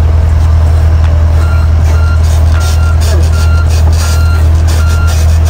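John Deere 50G compact excavator's diesel engine running with a steady low drone. Its travel alarm gives short high beeps about every three-quarters of a second, starting about one and a half seconds in, as the machine moves on its tracks.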